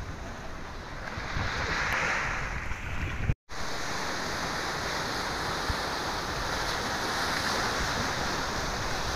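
Sea surf breaking and washing over shoreline rocks, a steady rush with wind buffeting the microphone. The sound drops out completely for a moment about a third of the way in, then carries on.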